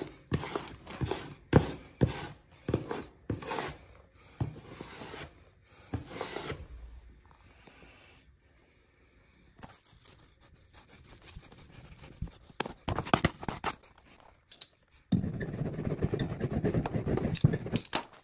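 Wallpaper being worked by hand during a splice: a run of quick scraping and rubbing strokes on paper, then a lull with a few light clicks, and a dense rustling stretch near the end.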